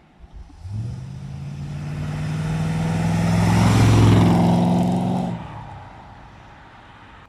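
A motor vehicle engine passing by, growing louder to a peak about four seconds in and then fading away.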